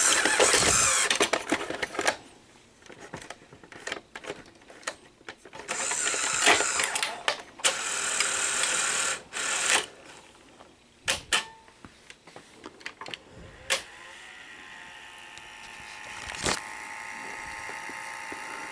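Sony SL-100 Betamax VCR's tape mechanism at work after power-on: stretches of motor whirring and gear noise broken by sharp clicks as the cassette loads and the tape threads, then a steady whine of the machine running in play from about two-thirds of the way in.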